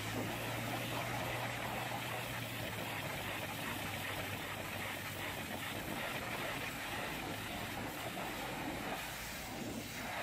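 High-pressure washer jet spraying the front grille and bumper of a truck: a steady hiss of water striking the panels, over a low steady hum that is strongest in the first few seconds.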